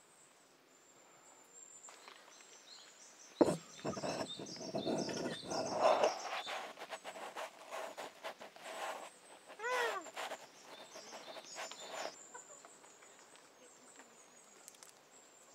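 A sharp knock about three and a half seconds in, followed by a couple of seconds of low rumbling noise, over a thin high steady tone. About ten seconds in comes one short call that rises and falls in pitch, from a Japanese macaque.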